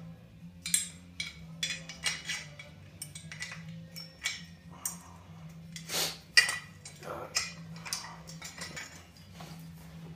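Steel parts of a weightlifting loading pin and its crossbar attachment clinking and clanking together as the attachment is fitted onto the pin tube: a string of sharp metallic clicks and taps, the loudest about six seconds in, over a steady low hum.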